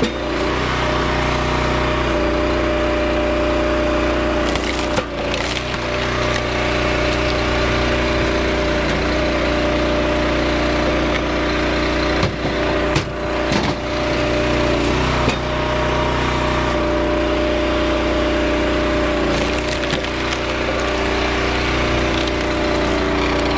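Engine of a Rugged Made RS737 37-ton log splitter running steadily, its tone shifting every few seconds as the hydraulic ram loads up and releases on its auto-cycle. Wood cracks and splits apart twice, about five seconds in and again near thirteen seconds.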